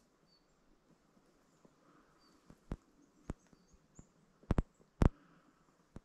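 Footsteps on a frozen, snow-covered mountain trail: a handful of sharp crunches a second or so apart from about halfway through, the two loudest coming as quick doubles.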